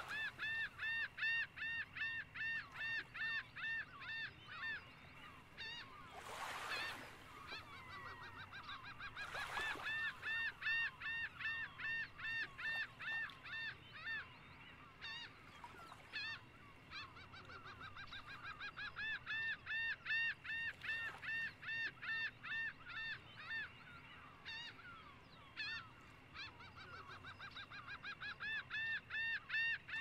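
A large flock of birds calling non-stop: a rapid, overlapping series of short, sharp honk-like calls, several a second, swelling and easing in waves.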